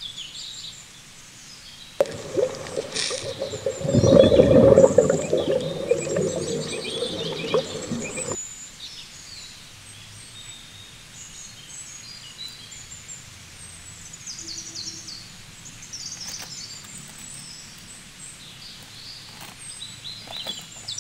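Small birds chirping over a faint outdoor background. A louder, even noise cuts in about two seconds in and stops abruptly some six seconds later.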